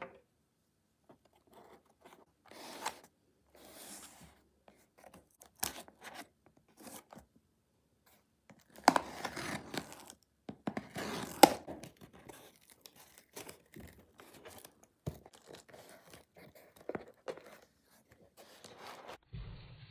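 Clear packing tape on a cardboard parcel being slit with a blade and torn, loudest about halfway through, amid scattered rustles and clicks of the box being handled. Softer crinkling of cardboard flaps and bubble wrap follows as the parcel is opened.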